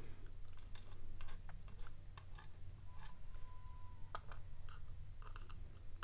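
Faint, scattered small clicks and ticks of tweezers picking up and setting down tiny lock pins and springs in the slots of a pin tray.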